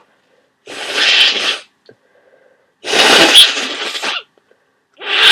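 A person with a head cold sneezing loudly three times, about two seconds apart, the third starting near the end.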